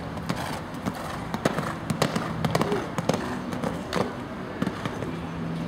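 Hoofbeats of a cantering show-jumping horse thudding on the arena surface as it goes to and over a fence, an uneven run of knocks.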